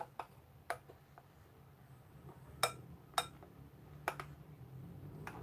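Slime being stirred in a plastic tub, with a handful of sharp, separate clicks as the stirrer knocks against the container, over a faint steady low hum.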